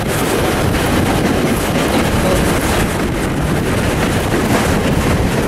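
Wind rushing over a microphone held out of a moving wooden passenger carriage's window, over the steady running noise of a train hauled by steam locomotive 621 working up a steep 1 in 45 grade.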